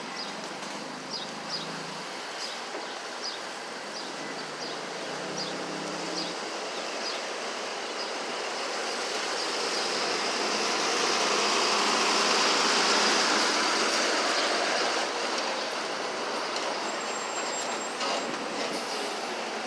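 A large vehicle passing by, its noise swelling to a peak about twelve seconds in and then fading away, over a steady background of street traffic.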